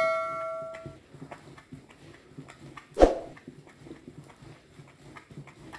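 A notification-style bell chime rings and fades away over the first second, then a single loud knock comes about three seconds in, most likely the wooden stirring stick striking the bowl. Faint, regular swishing of the stick stirring thick liquid soap runs underneath.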